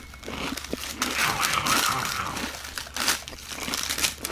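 Foil wrappers crinkling and rustling as they are peeled off Cutetitos toys, an uneven run of crackles that thickens about a second in.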